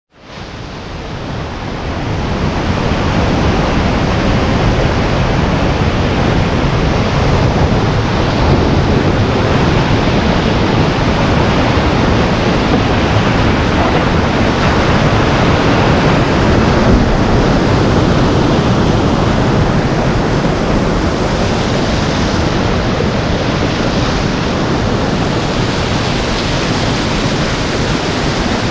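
Whitewater rapids of a steep boulder creek, a steady rushing of churning water heard close up from a kayak, fading in over the first few seconds.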